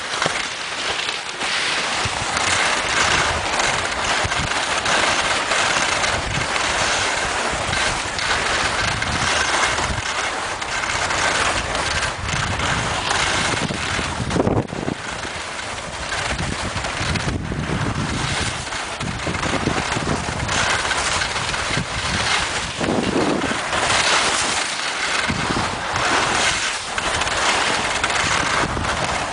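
Skis sliding and scraping over snow on a downhill run, a steady rushing hiss with small scrapes, and wind buffeting the microphone.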